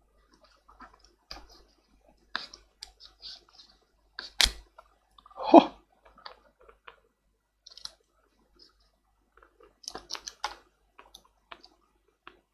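Small scattered clicks and scrapes of the tablet's parts being handled and pried apart by hand, with a sharp click about four and a half seconds in and a short, louder, lower noise just after it.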